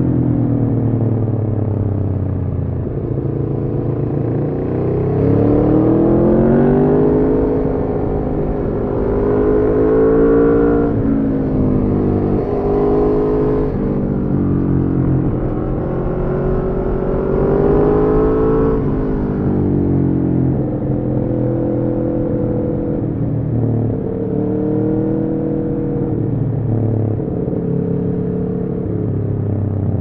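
Aprilia Tuono V4's V4 engine through a decatted Arrow slip-on exhaust, pulling in several long rising sweeps with the pitch falling back between them, then running at steadier revs with small rises in the last third.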